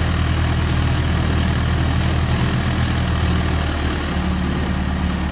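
Large truck engine idling steadily, a low, even hum.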